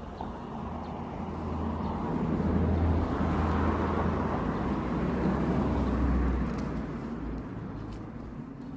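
A vehicle passing: a rumble and road noise that swell over a couple of seconds, hold, then fade away.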